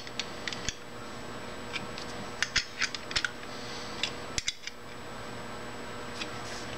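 A 7/16 open-end wrench clicking and tapping on the hex heads of the end cap's long through-screws as they are snugged up. The clicks are scattered, with a quick cluster a couple of seconds in and a single sharp click after about four seconds.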